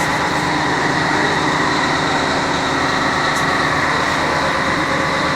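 CNC lathe running steadily in the shop, a constant loud machine drone with a steady high whine.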